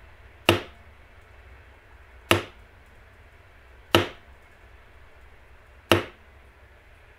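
Mallet striking a leather beveling tool four times, sharp single taps nearly two seconds apart, pressing down the edges of the carved outline in the leather.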